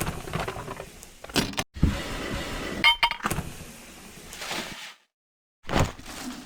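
Short, edited-together bursts of clicking, clinking and rattling of hard objects, each cut off abruptly into dead silence, typical of handling parts during disassembly.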